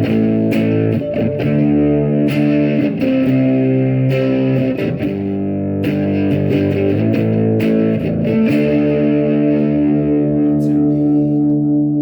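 Xavier PRO830 Tele-style electric guitar played through a Spark amp on a clean Fender-like tone with a little overdrive: a run of strummed chords, then one chord left ringing out over the last few seconds.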